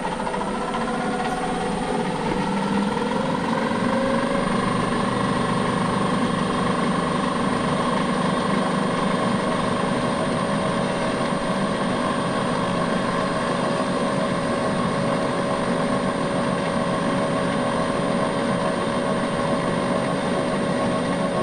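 Bridgeport milling machine's spindle running with a steady whine while a long twist drill is fed into a metal bar. The pitch rises over the first few seconds, then holds steady.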